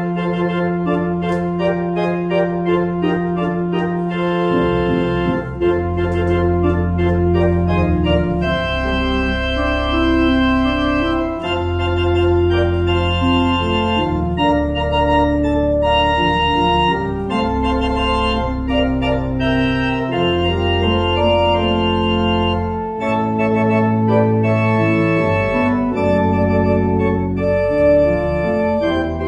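Organ music: sustained chords held over a slowly moving low bass line.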